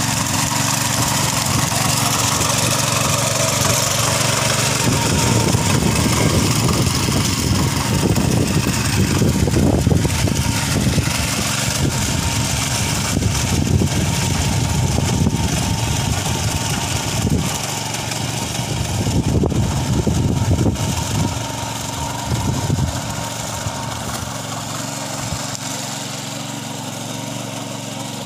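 Walk-behind power tiller's engine running steadily under load as its rotor churns through a flooded paddy field. It grows fainter over the second half as it moves away.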